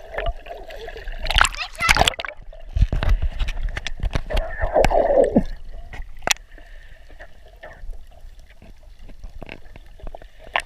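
Sea water splashing, sloshing and bubbling around an underwater camera as it moves through shallow water and dips in and out of the surface, with sharp clicks among the splashes. Busy in the first half, quieter after about six seconds.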